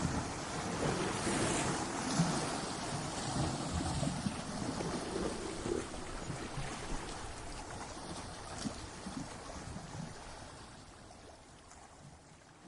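Ocean surf breaking and washing up a shore in a continuous rushing hiss, fading out gradually over the last several seconds.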